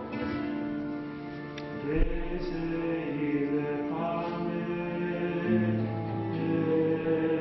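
Sung liturgical chant of the Eucharistic prayer: slow singing in long held notes that move to a new pitch every second or two.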